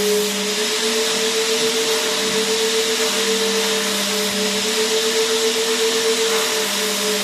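Vacuum cleaner running continuously: an even rushing hiss with a steady motor hum whose pitch wavers slightly.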